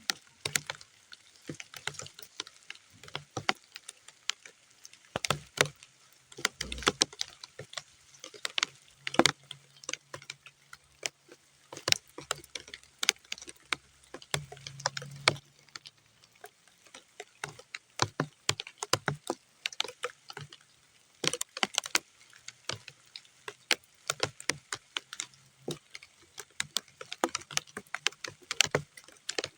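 Raindrops falling onto muddy ground: separate, irregular taps and small splashes, several a second, rather than a dense hiss.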